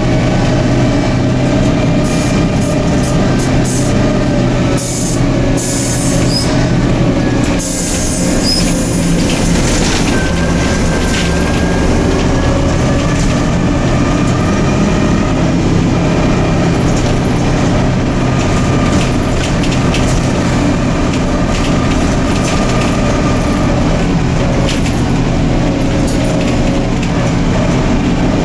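Cabin sound of a Neoplan/ELBO N4007 city bus on the move: its engine and drivetrain run steadily, their pitch shifting slowly as the bus changes speed. Scattered rattles and knocks are heaviest about five to nine seconds in.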